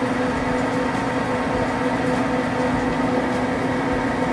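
Inoue Seisakusho three-roll mill running steadily, its frequency-controlled drive motor giving a constant hum with a steady whine.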